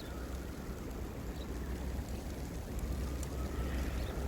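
Wind buffeting the microphone during a snowstorm: a steady low rumble under an even hiss.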